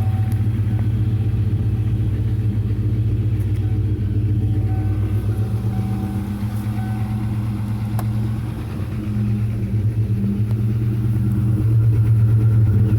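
Car engine idling steadily, its exhaust note heard from close by under the car. It has just been started and is warming up to heat-cure a fresh patch of exhaust repair paste on the header pipe. The note drops briefly about two thirds of the way through and then comes back louder near the end.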